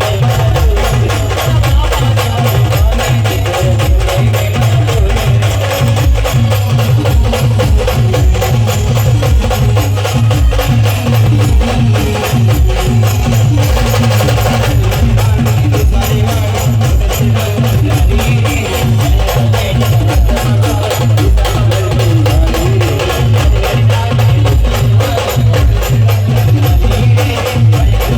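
A village band playing dance music: fast, steady percussion over a heavy bass beat.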